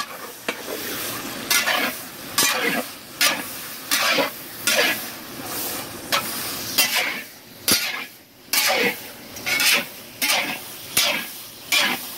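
Chicken thighs sizzling in a large black cast-iron pot while a long metal-bladed paddle scrapes across the pot in repeated strokes, a little faster than one a second.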